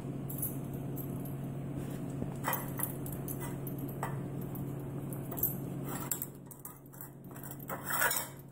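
Plastic balls knocking and rattling in a metal muffin tin as a husky noses and mouths at them to reach the treats hidden underneath: scattered clinks and knocks, with a louder clatter near the end. A steady low hum runs underneath.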